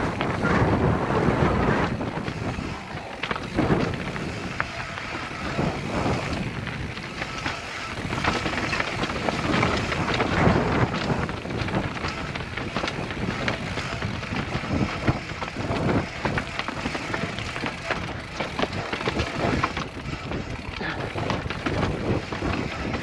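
2017 Specialized Enduro FSR 29er full-suspension mountain bike descending a dirt and rock trail at speed: tyres on dirt and stones with a constant rattle and clatter of the bike over rough ground, under wind rushing across the helmet camera's microphone.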